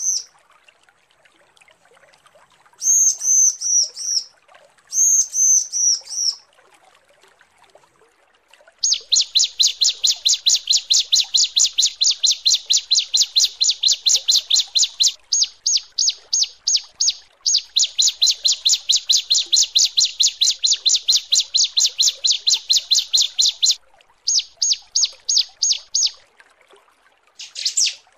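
Female bar-winged prinia (ciblek) calling to attract males. It gives a few short bursts of arching high notes, then long fast runs of sharp repeated notes, about six a second, broken by brief pauses.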